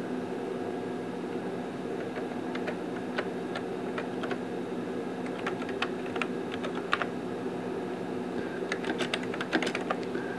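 Computer keyboard keystrokes as commands are typed at a terminal: scattered key presses, with a quicker run of keys near the end, over a steady machine hum.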